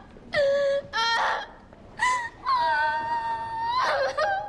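A young woman crying openly, with a few short wailing sobs followed by one long, drawn-out wail.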